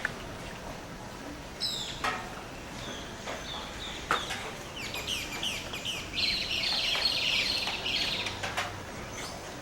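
Dawn chorus of rainforest birds: scattered short chirps and calls, then a dense run of rapid, falling chirps from about five seconds in, loudest around seven seconds, that fades out before the end.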